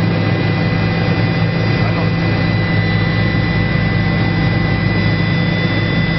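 Helicopter cabin noise: the turbine's steady high whine over the constant low drone of the engine and rotor, never changing in level.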